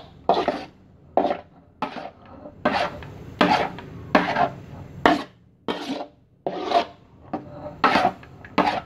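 Spatula scraping around a metal wok as it stirs thick peanut sauce, in repeated quick strokes about one and a half a second.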